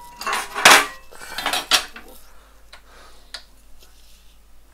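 Metal cookware clattering: a quick run of clinks and scrapes in the first two seconds, loudest just under a second in, then a couple of faint ticks.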